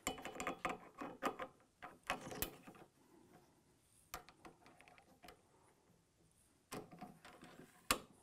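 Light metallic clicks and rattles of a fluted rifle bolt being handled and slid into the action to check headspace with a go gauge in the chamber, in short clusters with gaps between.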